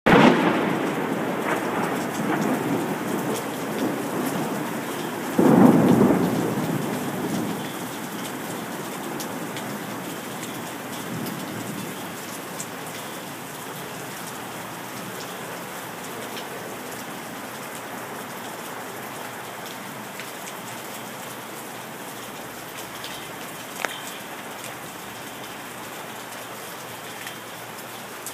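Thunderstorm: rain pouring steadily, with thunder rumbling at the start and a louder clap about five seconds in that rolls away over a couple of seconds. A single sharp tap sounds near the end.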